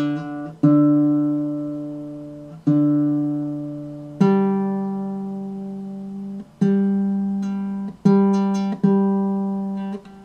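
Sound-sation baritone ukulele, newly restrung, strummed one chord at a time. About six chords, each let ring and fade before the next, with a few damped short just before the next strum.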